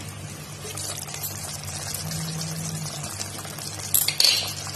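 Yogurt-based curry gravy simmering and bubbling in an open kadai, a steady fizzing crackle with a few louder crackles near the end.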